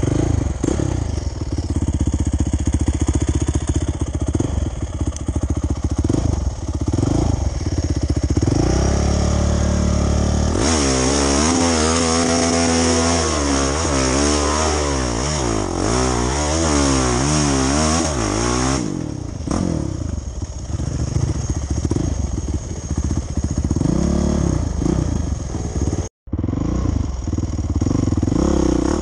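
Off-road dirt bike engine being ridden, blipped up and down in pitch through quick rises and falls in the middle of the stretch, then settling back to lower revs. The sound cuts out for an instant near the end.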